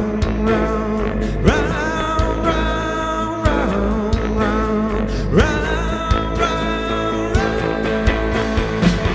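Live rock band playing loud on electric guitars, bass and drums, with long notes that swoop up in pitch and then hold, several times.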